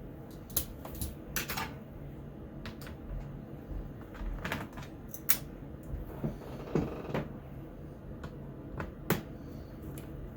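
Scattered small clicks and brief light scrapes of hand tools and plastic laptop parts being handled while screws are removed from an HP G60 laptop during disassembly.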